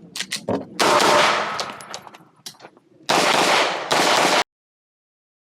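Glock 19 9mm pistol firing rapid strings of shots, so loud and closely spaced that they run together into two long stretches of gunfire. The sound cuts off abruptly about four and a half seconds in.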